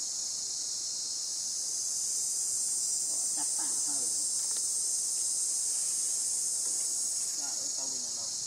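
Steady, high-pitched chorus of forest insects droning without a break.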